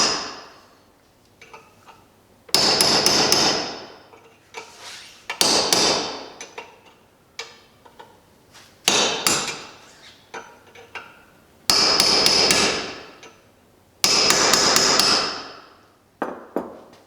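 Hammer blows on a steel chisel in quick clusters of several strikes, with a bright metallic ring, repeated about six times with short pauses between. The chisel is collapsing the drilled-out shell of a broken bolt in a tractor's power takeoff housing.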